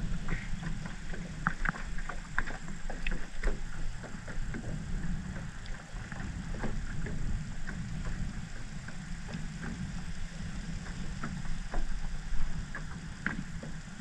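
Irregular light knocks and taps in a small jon boat over a steady low rumble.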